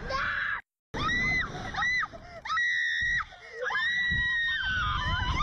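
A young woman screaming on a slingshot ride: a string of high-pitched shrieks starting about a second in, after a brief dropout, the last and longest held about a second and a half. A low rumble runs beneath.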